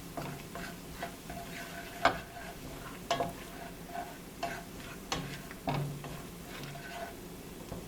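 A spoon stirring and scraping ginger, garlic and biryani spices as they fry in oil in a cooking pot, with a light sizzle and several sharp knocks of the spoon against the pot.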